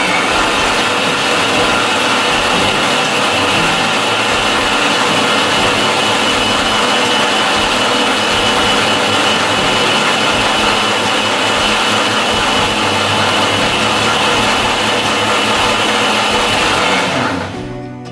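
Electric mixer grinder running at speed, its steel jar blending strawberries with milk and water into juice: a loud steady motor noise with a thin high whine, which stops near the end.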